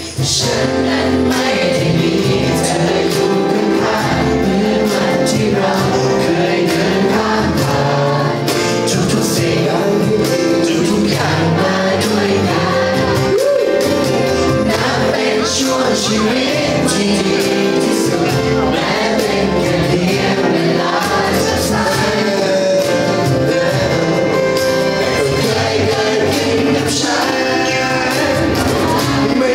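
Live acoustic band: a man singing into a microphone over acoustic guitar and cajon, played through a PA system.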